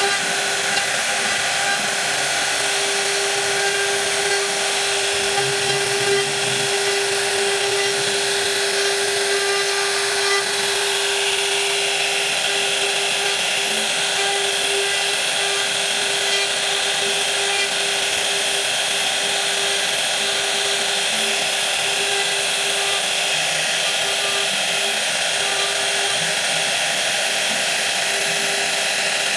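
A power tool running steadily at constant speed: a single unchanging whine over a continuous hiss.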